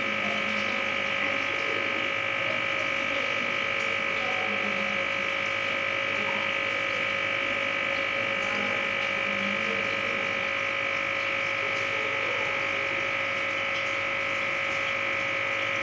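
An aquarium humming loudly: a steady electric drone of several held tones with a hiss above them, unchanging throughout.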